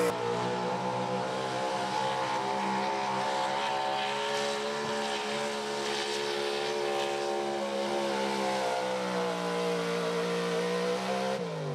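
Small-block high-output 4x4 pulling truck's engine held at a steady, very high RPM through a pull down the track. Near the end the pitch falls sharply as the engine comes off the throttle.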